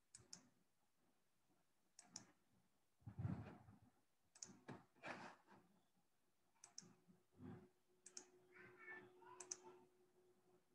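Faint computer mouse clicks, mostly in quick double clicks about every two seconds, with a few soft thumps and rustles in between.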